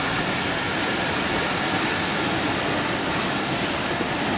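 Pakistan Railways passenger train's coaches rolling along the track, a steady, even running noise with no clear beat.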